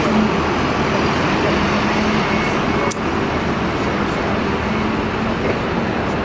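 Steady road traffic noise with a low engine hum, and a single sharp click about three seconds in.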